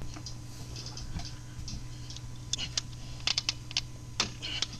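Dry soil, dead leaves and small twigs and roots crackling and snapping as they are disturbed by hand, a scatter of sharp irregular clicks that thickens from about halfway through, over a low steady hum.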